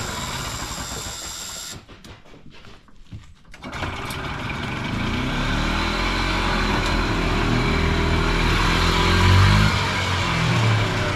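Two-stroke Harley-Davidson engine of a vintage Par Car golf cart running as the cart is driven, dropping away for a moment about two seconds in and then running steadily again. A steady buzz from the cart's reverse backup alarm sounds along with it.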